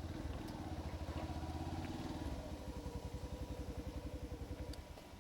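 Motorcycle engine running with an even, pulsing beat, fading away near the end.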